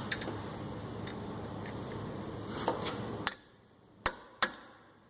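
Impact driver hammering at a tight Phillips rotor-retaining screw, running steadily and then stopping abruptly about three seconds in. Two sharp metallic knocks follow about a second later.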